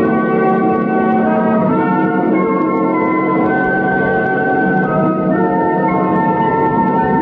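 Organ music bridge: sustained chords held for a second or two each, shifting to new chords a few times.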